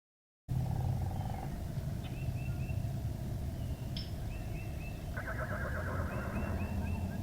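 A horse-like whinny: a high, trembling call lasting about two seconds near the end, with a shorter trembling call just after the sound begins. Behind it are a steady low rumble and a few groups of short high chirps.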